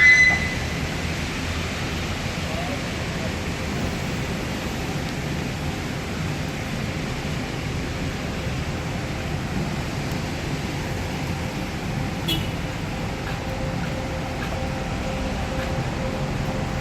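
Steady rain, an even hiss without breaks, with a short high-pitched sound right at the start.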